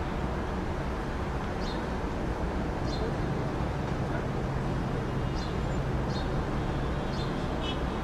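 Small birds giving short, high, falling chirps, about six in all, over a steady low rumble and hiss of outdoor background noise.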